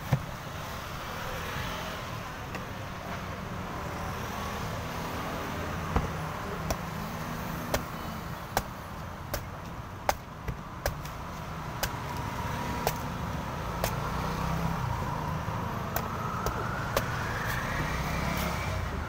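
Cleaver blade striking and chopping into a young coconut's husk, short sharp chops about once a second, over a steady rumble of traffic; near the end an engine rises in pitch.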